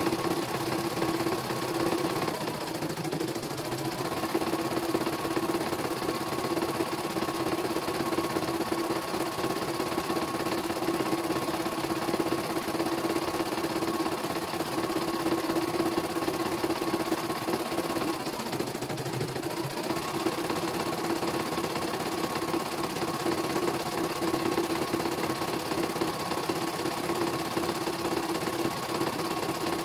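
CNY E900 computerised embroidery machine stitching a design: a steady, fast needle-and-motor hum with a higher whine on top. The whine drops out twice for about a second.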